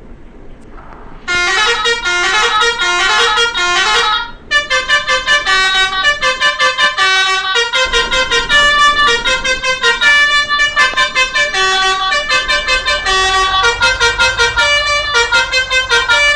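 Bus 'telolet' multi-tone musical horn playing a tune. It starts about a second in with a quick repeated run of rising notes, then goes on as a rhythmic string of short notes, several a second, with the pitch stepping up and down.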